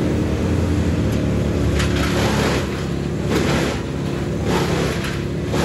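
Wood chipper (mulcher) engine running steadily, with several surges of rough noise from about two seconds in as branches are chopped into wood chips.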